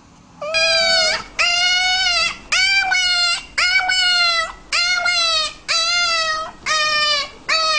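Puppy crying in a run of eight high-pitched yelping cries, one after another. Each lasts just under a second, and they start about half a second in.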